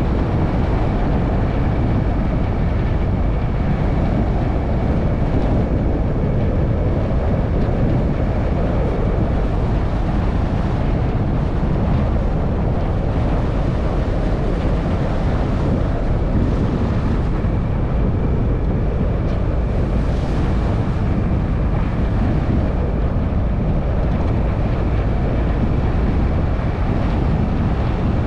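A vehicle driving steadily along an unsealed dirt road: continuous tyre, engine and wind noise, heavy in the low end, with no sudden changes.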